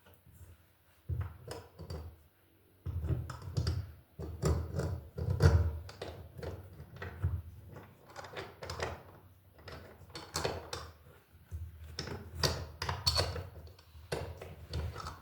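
Irregular knocking, clicking and scraping of metal parts handled together as a brass wall light fixture is worked onto its mounting bracket, with dull thumps underneath. It starts about a second in.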